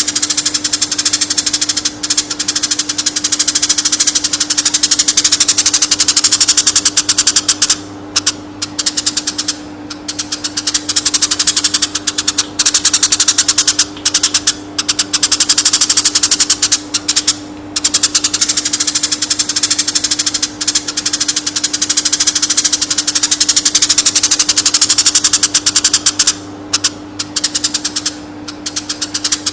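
Eurasian tree sparrows chirping in a fast, dense stream of short chirps, broken by a few brief pauses, over a steady low hum.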